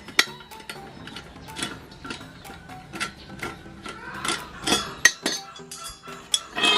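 Irregular metallic clicks and clinks of a wrench and tools working the bolts that hold a motorcycle's stock muffler to its exhaust elbow, with a few sharper knocks about five seconds in and near the end.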